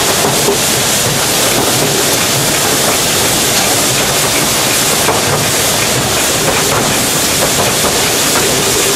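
Narrow gauge steam train running slowly: a steady, loud hiss and rumble, with a few faint wheel clicks on the rails.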